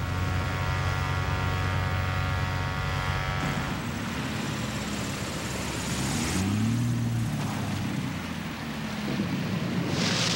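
Light propeller bush plane's engine droning steadily. About a third of the way in the sound turns rougher and noisier, the engine pitch sliding up and back down near the middle, with a burst of hiss near the end.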